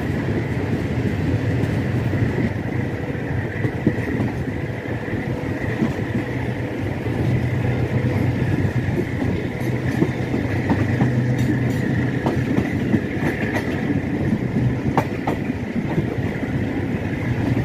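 Passenger train running along the track: a steady rumble of the coach wheels on the rails with a faint steady high whine, and a few sharp clicks from the wheels over rail joints in the second half.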